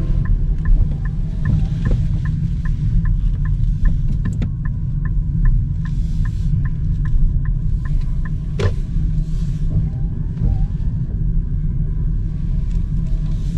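Steady low rumble of tyres on a wet road heard inside the cabin of a Nissan Note e-POWER at low town speed. A turn-signal indicator ticks about three times a second through the first eight seconds or so, and a single sharp click sounds near the middle.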